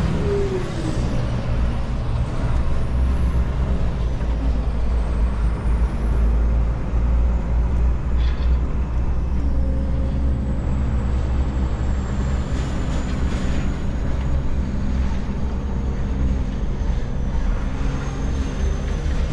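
Heavy diesel engine idling steadily, with a faint high whine that slowly falls in pitch and a short hiss about eight and a half seconds in.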